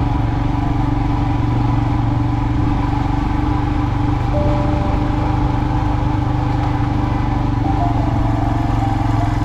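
Motorcycle engine running at a steady pace while riding, a constant low hum with no revving.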